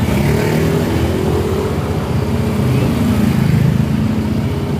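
Motorcycle engine running steadily close by, with a low pulsing rumble and slight shifts in pitch as it is throttled.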